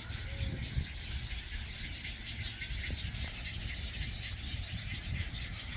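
Wind rumbling on the microphone over the steady chatter of many birds calling at a nesting colony.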